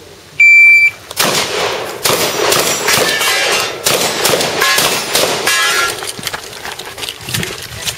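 An electronic shot timer gives its short high start beep, and about a second later a shotgun opens fire: a fast string of loud shots spread over the next several seconds.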